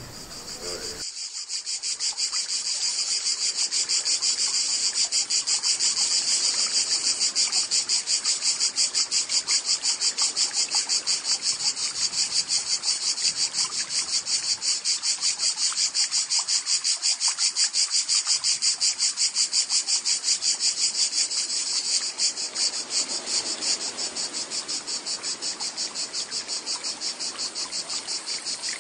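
Cicadas singing in the summer heat: a loud, continuous high buzz pulsing rapidly and evenly, starting about a second in.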